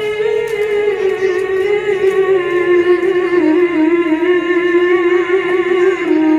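A male qari reciting the Quran in the melodic tilawah style, amplified through a hand microphone. He holds one long note with a wavering ornament, and it slides slowly down in pitch before breaking off near the end.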